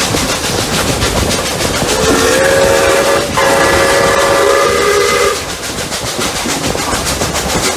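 Steam locomotive whistle sounded in two blasts, a short one and then a longer one just after it, over the steady rhythmic beat of the steam locomotives working hard up a grade.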